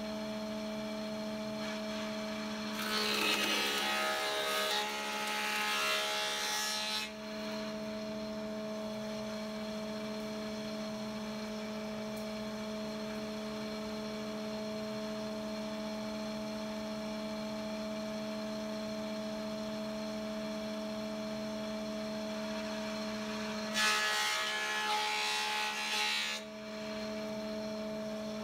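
Thickness planer running with a steady hum, taking two passes of a rosewood handle blank: a loud rushing cut about three seconds in that lasts about four seconds, and a shorter one near the end.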